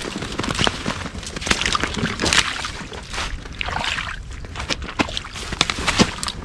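Footsteps crunching through snow and a body pushing through dry brush, branches scraping and twigs snapping in an irregular run of rustles and cracks.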